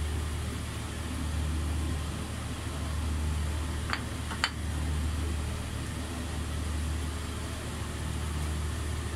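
A steady low hum, like a kitchen appliance's motor, with two light clicks about four seconds in, half a second apart, as a fork taps on a plate.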